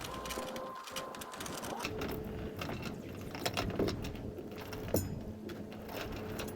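Metal anchor chain clinking and rattling in quick, irregular clicks as the old chain is worked out of the chain locker, under a faint steady hum.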